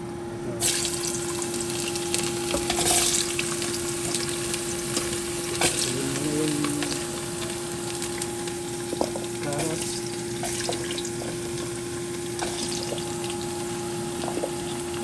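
Diced potatoes and carrots frying in hot oil in a pan: a steady sizzle that starts abruptly under a second in, as they go into the oil, with occasional clicks of stirring. A faint steady hum runs underneath.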